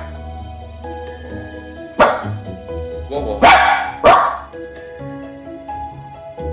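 A small terrier barks three times, loudly: once about two seconds in, then twice close together about a second later. Background music plays underneath.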